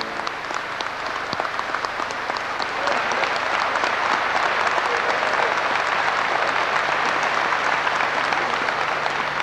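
Audience applause: many hands clapping at once, growing fuller and louder about three seconds in and then holding steady.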